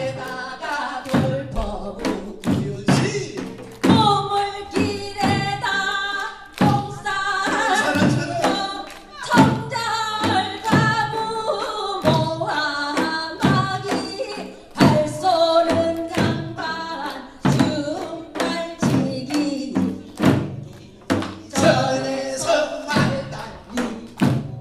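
Korean folk singing in pansori style, sung into microphones, over a buk barrel drum that is struck sharply and often with a stick.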